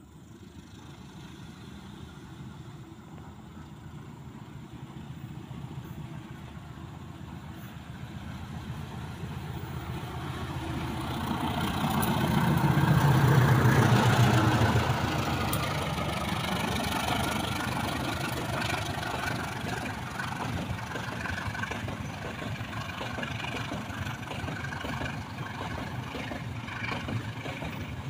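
Diesel locomotive hauling a coal train, getting louder as it approaches and passing close by about halfway through. After it, the long line of coal hopper wagons rolls past with a steady rumble of wheels on rail.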